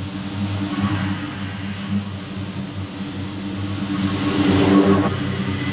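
Scag Cheetah zero-turn mower running steadily while mowing, its engine and spinning cutting deck growing louder as it passes close, loudest between four and five seconds in.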